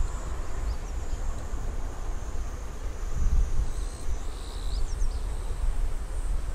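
Low rumble of wind buffeting the microphone, with a thin, steady high insect buzz and a few short bird chirps about four and a half seconds in.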